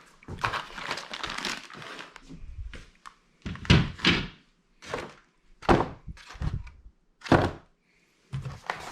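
Parts of a TV wall mount kit being handled: rustling for the first few seconds, then about six separate thunks as the metal pieces are picked up and set down.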